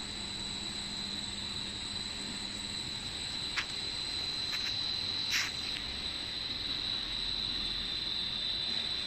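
PE mosquito-net extrusion line with a rotating die head running: a steady machine hiss with a high, steady whine over it and a faint low hum. A few sharp clicks come around the middle.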